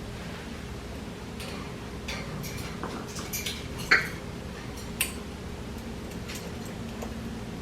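Light clicks and clatters of toys being knocked about by a young African grey parrot at play, with two sharper knocks about four and five seconds in.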